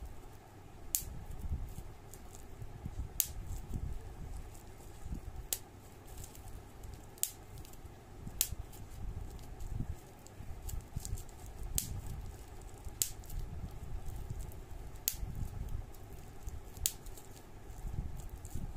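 Handling noise from a hand holding and scrolling a smartphone: a low rumble with sharp single clicks every second or two at uneven spacing.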